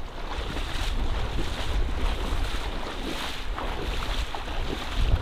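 Water splashing and swishing as legs in waders push through shallow marsh water, with wind rumbling on the microphone.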